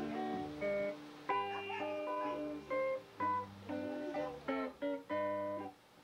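Guitar playing a bluegrass tune: picked melody notes over a low bass line that steps from note to note, with short breaks between phrases.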